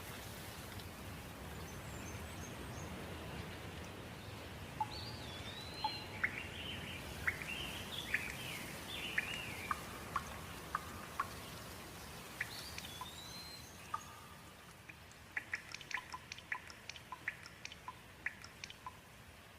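Steady rain with birds calling over it: arched whistled calls and quick chirps. About two-thirds of the way through the rain thins and a quick series of sharp ticks, like drips, follows.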